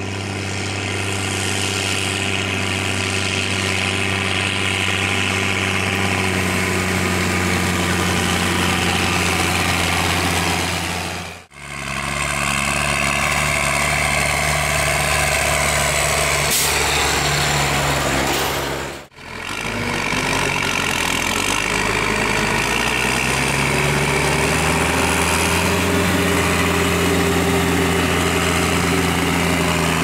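Diesel tractor engines running steadily under load as they pull loaded silage trailers, in three takes separated by sudden cuts after about eleven seconds and again about eight seconds later. In the last take the engine note climbs as the tractor speeds up.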